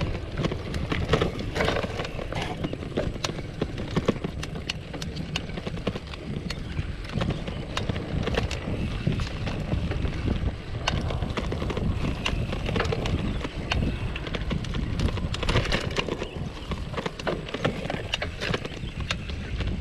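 Polygon Bend R2 gravel bike riding over a rough, narrow dirt track: a steady low rumble from the tyres and frame, broken by frequent irregular clicks and rattles as the bike jolts over the bumps.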